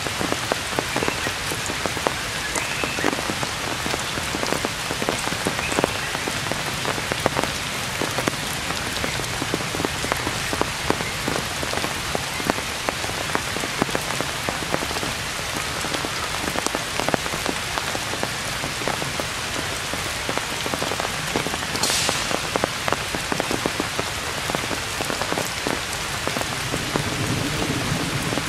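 Heavy rain falling on forest foliage: a steady hiss with many sharp drop hits on leaves, and one brief louder hiss about three quarters of the way through.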